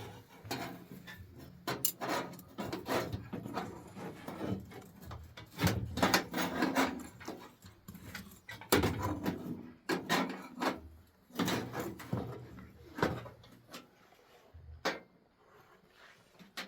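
Irregular knocks and clattering of objects being handled and set down, a few of them loud.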